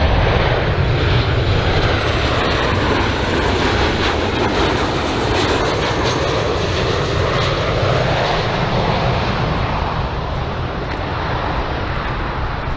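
Twin-engine jet airliner's engines on landing approach: a steady rush of jet noise with a whooshing tone that sweeps slowly up and down as the aircraft passes, easing off slightly near the end.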